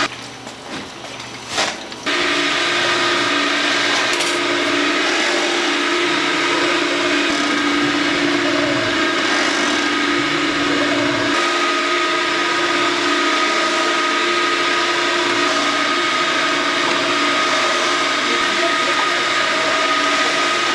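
Fish cake-making machinery running steadily, a constant mechanical hum of several held tones over a whirring noise. It is quieter for about the first two seconds, with a brief knock, then runs evenly.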